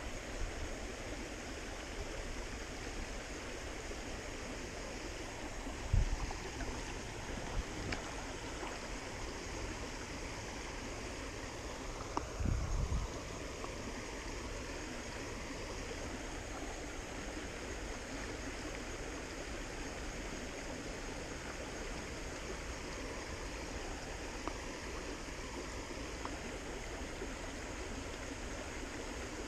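Shallow, rocky trout stream flowing steadily over stones, an even rushing hiss of water. There are two brief thumps, one about six seconds in and another around twelve seconds in.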